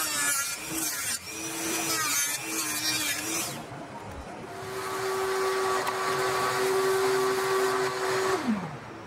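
A handheld rotary tool with a cut-off wheel cuts a plastic servo cover in several short passes, its whine breaking off and coming back. About a second later a small motor runs steadily for about four seconds, then is switched off, its pitch falling as it winds down.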